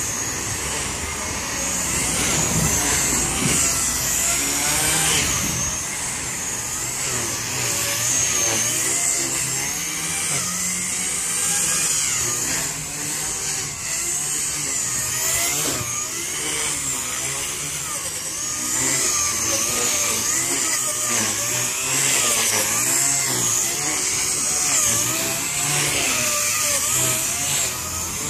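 Blade 130 X micro RC helicopter in flight: a continuous high-pitched electric motor whine with rotor buzz, its pitch bending up and down as the rotor speed changes.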